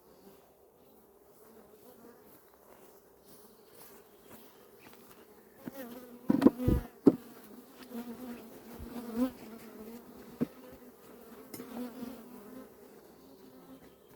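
Honeybees buzzing steadily around open hives, a swarm-like hum. About six seconds in the buzzing swells loudly, as from bees close to the microphone, along with a few sharp knocks.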